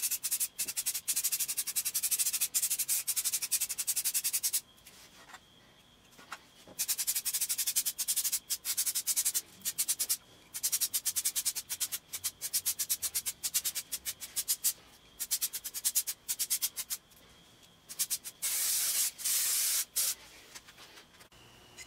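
Aerosol can of black spray paint hissing in bursts: one long spray of about four and a half seconds, a pause, then a string of short sprays, and another long spray near the end.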